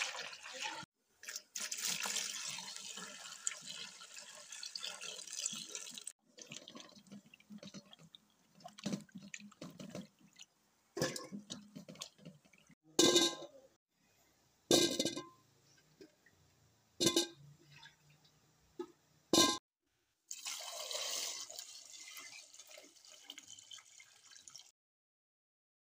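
Taro roots being washed by hand in water in a steel pot, sloshing and splashing, with four sharp knocks in the middle. Tap water pours into the pot during the last few seconds, then the sound cuts off suddenly.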